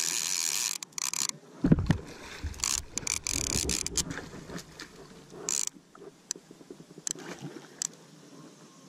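Fishing reel's drag buzzing as a hooked bowfin pulls line, cutting off suddenly about a second in. Then the fish thrashes and splashes at the surface, with a heavy low thump about two seconds in and scattered splashes and sharp clicks after.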